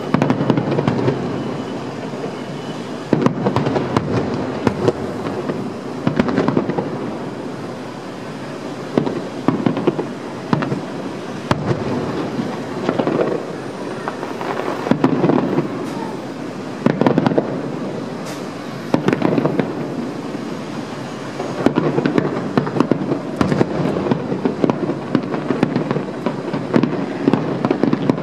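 Aerial firework shells bursting in a rapid barrage: frequent sharp bangs over a continuous rumble.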